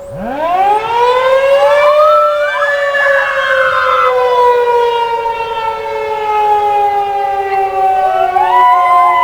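Federal Signal 2001-130 rotating outdoor warning siren doing a growl test. It winds up from a low groan to a full wail in about two seconds, then slowly winds down in pitch. A second rising tone joins near the end.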